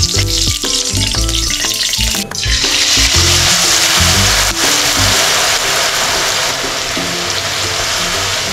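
Hot oil in a kadai frying with a loud sizzle that starts suddenly about two seconds in. Background music with an even melody of short notes runs throughout.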